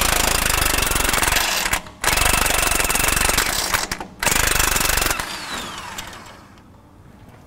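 Impact wrench hammering in three bursts as it breaks loose and backs out the 18 mm track bar bolt, then spinning down with a falling whine.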